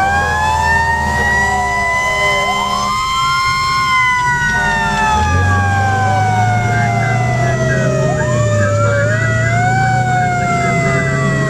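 Fire engine siren wailing, heard from inside the cab: several tones glide slowly up and down, and one winds up quickly twice and falls away slowly. The truck's engine runs steadily underneath, and its note rises about five seconds in.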